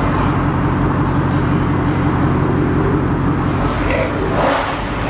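Truck's engine and road noise from inside the slowly moving cab with the window down: a steady low drone that eases off about three and a half seconds in, with a brief noisy sound just after.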